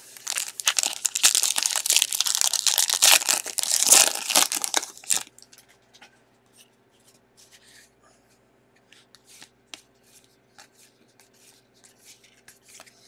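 A shiny foil trading-card pack wrapper being torn open and crinkled for about five seconds. After that it stops abruptly, leaving only faint light clicks as the stack of cards is handled.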